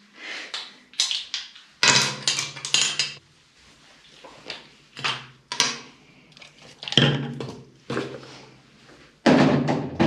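Makeup brushes and small containers being handled and washed: a series of short, irregular clatters and scrubbing noises with brief pauses between them.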